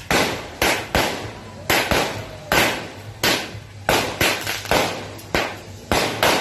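Aerial fireworks bursting in quick succession: about a dozen sharp bangs, roughly two a second, each with a short echoing tail.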